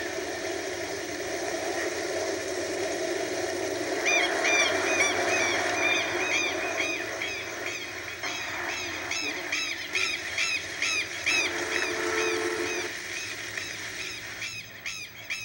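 Southern lapwings (quero-quero) calling: a long run of repeated harsh, arched notes, about two or three a second, starting about four seconds in over a steady rural background hiss. Heard through a television speaker.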